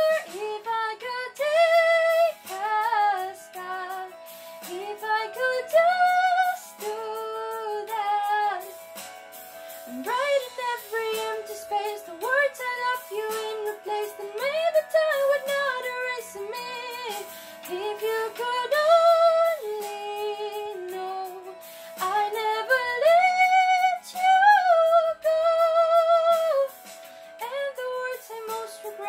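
A young woman singing a ballad in a series of short phrases that rise and fall, over a soft accompaniment of steady held notes.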